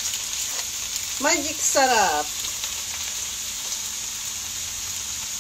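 Fried rice with ham and frozen mixed vegetables sizzling steadily in a wok. A brief voice sound breaks in about a second in.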